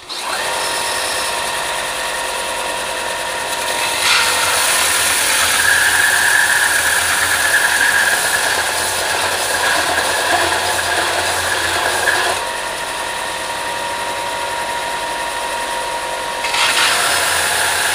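Electric sander switching on and running with a steady whine. From about four seconds in to about twelve, and again near the end, a manifold's gasket face is held flat against the abrasive, and the sound gets louder with a grinding rasp of metal being sanded flat.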